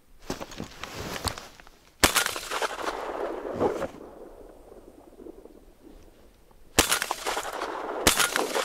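Three sharp shotgun reports, about two, seven and eight seconds in, with crunching snow and rustling between them.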